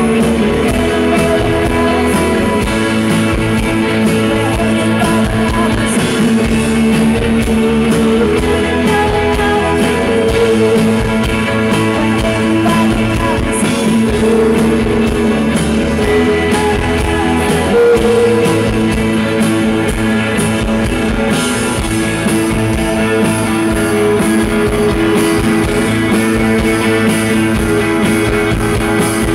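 Live rock band playing: electric guitars, bass, drums and keyboards, with two women singing the melody together.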